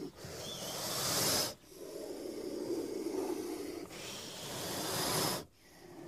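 Snake hissing: two long hisses, each swelling for about a second and a half and then cutting off sharply.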